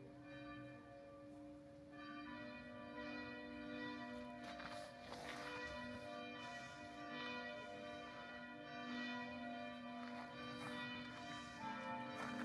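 Church bells of a Catholic parish church pealing, several bells of different pitch ringing together with their tones overlapping and sustaining, a little louder from about two seconds in. They are ringing to call people to the evening service.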